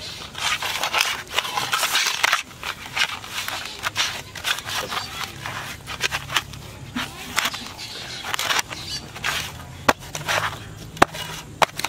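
Fishing dough bait being kneaded by hand in a steel plate: irregular squishing and scraping of the dough and fingers against the metal, with a few sharp clicks near the end.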